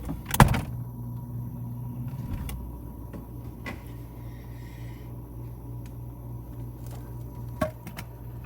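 A refrigerator door shut with a thump about half a second in, followed by a steady low hum with a few faint clicks.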